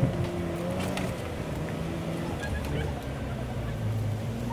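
Off-road truck engine running at low revs, its pitch stepping up and down, with a knock right at the start.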